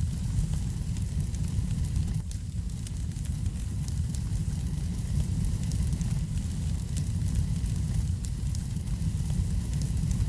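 Wood fire burning in a fireplace: a steady low rumble with many small crackles and pops scattered through it.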